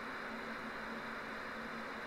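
Steady hiss of static from a CB radio receiver between transmissions, with a low steady hum underneath.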